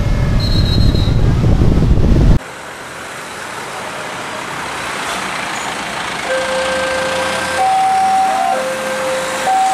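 A loud low rumble cuts off about two seconds in. Then, over traffic noise, a level-crossing warning alarm sounds two alternating steady tones, low then high, each about a second long, warning of an approaching train.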